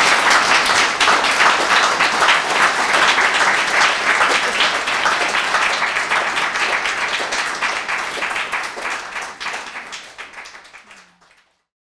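Audience applauding, a dense clapping that thins and fades out over the last few seconds before stopping.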